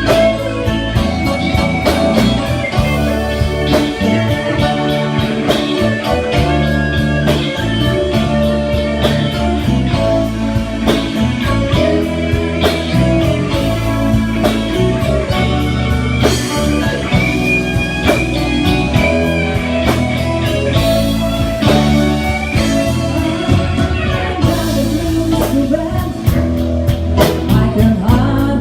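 A rock band playing a blues-rock song, with electric guitar, bass and a drum kit keeping a steady beat, and singing over it.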